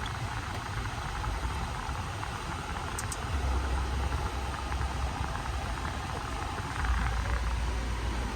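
2016 Toyota 4Runner's 4.0-litre V6 idling while parked, with the air-conditioning blower running on high on max AC: a steady rush of air over a low engine hum. The low rumble swells a few seconds in and again near the end.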